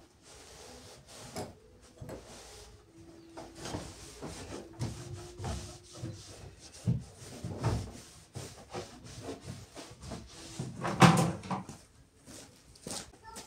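A cloth rubbing and wiping over a dresser, with scattered knocks and clatter of the furniture and its drawers. A louder cluster of knocks comes about eleven seconds in.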